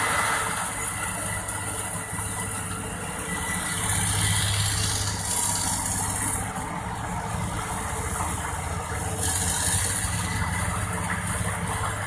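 Volvo 480DL excavator's diesel engine running steadily, growing louder twice: about four seconds in and again near ten seconds.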